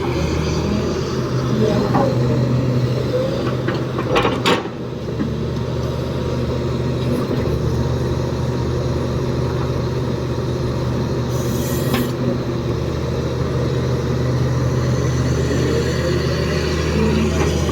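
Heavy diesel engine of an excavator running steadily while loading a tipper truck, with a sharp knock about four and a half seconds in and another about twelve seconds in.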